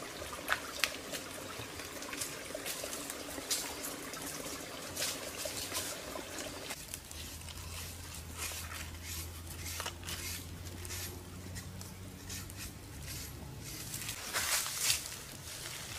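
Shallow stream water trickling, with scattered short clicks and scrapes throughout.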